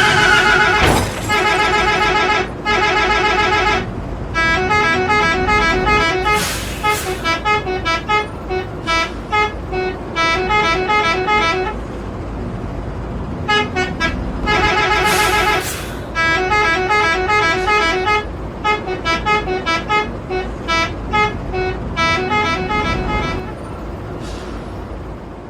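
Indonesian bus 'telolet' multi-tone horn playing quick melodic runs of short pitched notes, over and over, fading out near the end.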